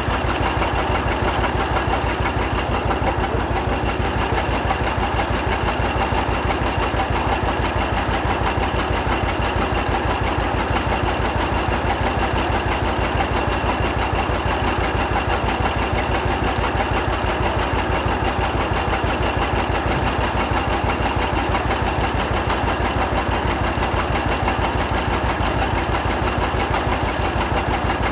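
1936 John Deere D's two-cylinder engine running steadily with an even, unbroken beat.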